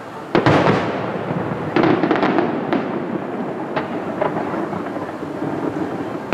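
Aerial firework shells bursting, heard from afar: a loud boom about a third of a second in and another just under two seconds in. Each boom trails off into a long rolling rumble, with a few lighter cracks after them.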